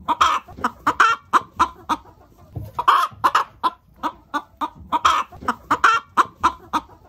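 Chicken clucking: a quick run of short clucks with a louder, longer squawk every second or two.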